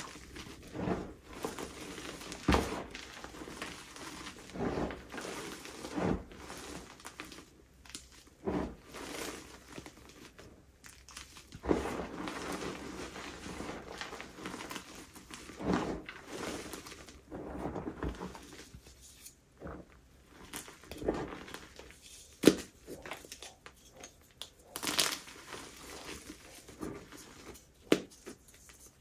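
Baked, dyed gym chalk being crushed and crumbled: flaky and crunchy, an irregular run of crunches, with a few sharper, louder cracks among them.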